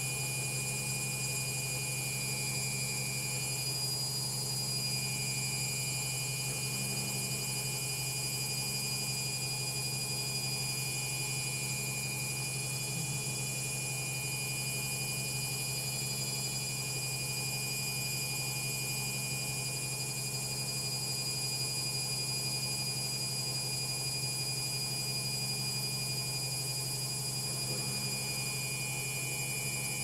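LOGIK front-loading washing machine on its spin, running at a steady speed: a constant motor hum with a high steady whine over it, and a faint low pulse about every two seconds.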